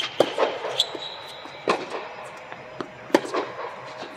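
Tennis ball struck by rackets and bouncing on a hard court during a singles rally: several sharp pops a second or so apart, echoing in an indoor tennis dome.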